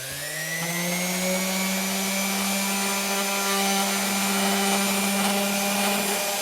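Electric motor switched on, spinning up over about a second, then running steadily at one constant pitch with no load on it.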